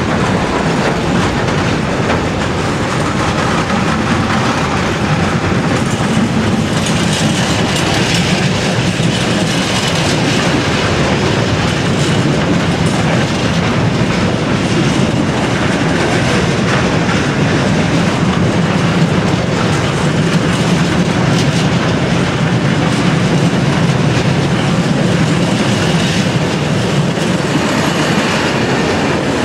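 A railway train rolling steadily past for about half a minute, its wheels clicking over the rail joints.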